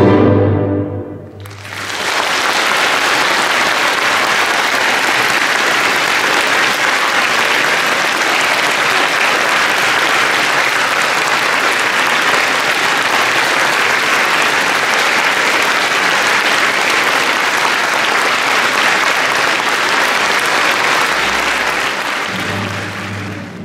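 Orchestral music ends on a final chord, then a theatre audience applauds steadily for about twenty seconds, fading out near the end.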